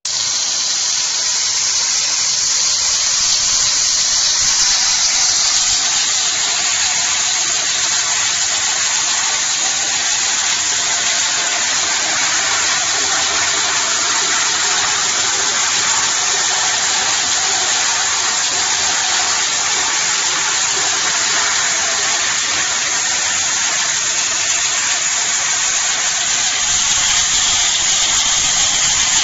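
BOPP packing-tape slitting and rewinding machine running steadily, a constant high-pitched hiss and whir as the film is slit and wound onto rolls.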